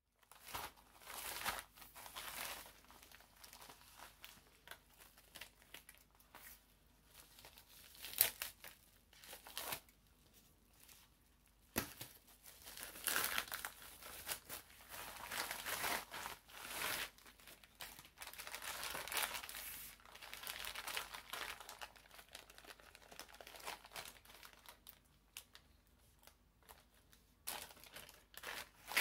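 Plastic packaging crinkling and rustling as it is handled and torn open by hand, in uneven bursts with a couple of sharp clicks.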